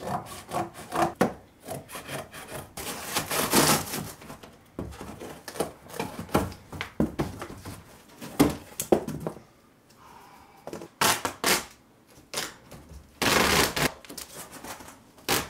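Corrugated cardboard boxes being cut with a box cutter: short scraping, rubbing and knocking of blade and cardboard. About thirteen seconds in, packing tape is pulled off its roll in a noisy stretch lasting about a second.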